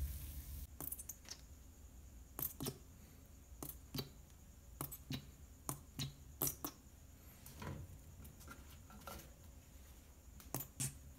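A metal spoon scrapes and taps on a toasted burger bun as sauce is spread over it, and the bun is handled: a dozen or so short, irregular scrapes and clicks.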